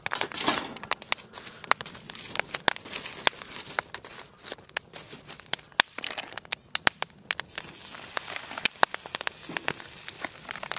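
Wood fire crackling in a steel fire-pit grill, with many sharp, irregular pops throughout. Just after the start there is a brief scraping rush as the wire grill grate is set over the flames with tongs.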